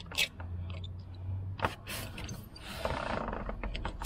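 Small metal clicks and scrapes from a pick worked around the snap-ring groove on an A/C compressor, with a longer scraping rub about three seconds in.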